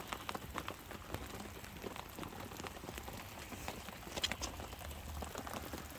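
Light rain pattering, with scattered irregular drip ticks and no steady rhythm.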